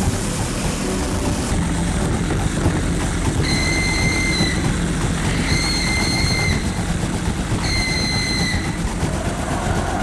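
Loud steady mechanical rumble and rushing noise from the giant spider machine's hydraulic machinery. In the second half, three held high tones sound one after another, each about a second long.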